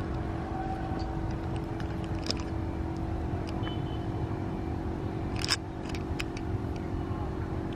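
Outdoor background noise with a steady low hum throughout, and two faint short clicks, one about two seconds in and one about five and a half seconds in.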